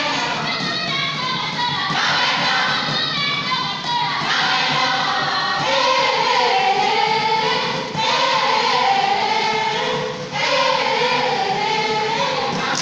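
A group of girls singing a traditional Kimeru dance song together, in short phrases with brief breaks between them.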